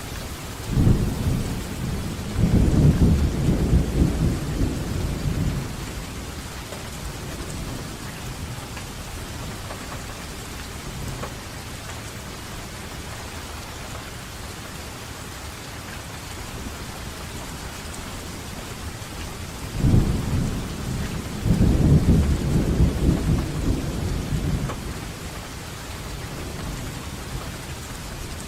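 Steady rainfall with two rolls of thunder: one rumbling from about a second in for several seconds, and another about twenty seconds in, each building in two swells before fading back under the rain.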